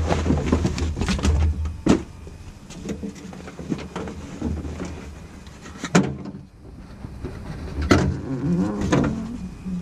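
Rustling and handling noise as carpet is pulled up from the rear floor of a Jeep Wrangler TJ, with sharp knocks about two, six, eight and nine seconds in.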